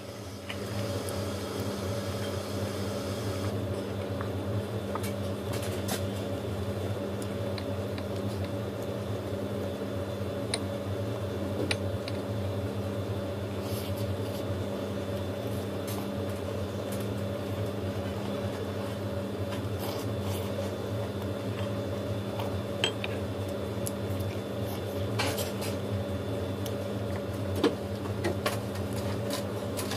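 A steady electrical hum with several fixed pitches, with scattered small clicks and taps from eating fried chicken and handling the bowls.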